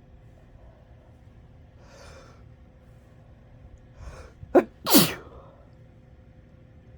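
A person sneezing: a couple of breathy intakes of breath, then a loud sneeze in two quick parts about four and a half seconds in, the second and louder part falling in pitch.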